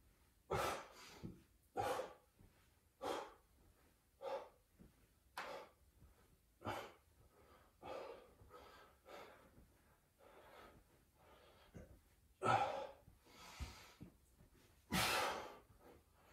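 A person breathing hard through a set of max-rep push-ups, with a sharp exhale about every 1.2 seconds. Two louder, heavier breaths come near the end.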